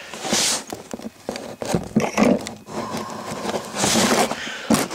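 Rustling and scraping handling noises with scattered light clicks and knocks, and a few short hissing bursts.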